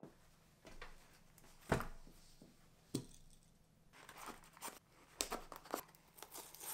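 Cardboard shipping box being opened: two sharp knocks in the first few seconds, then the scratch and rip of a pocket knife slitting the packing tape and crackly rustling as the cardboard flaps are pulled apart.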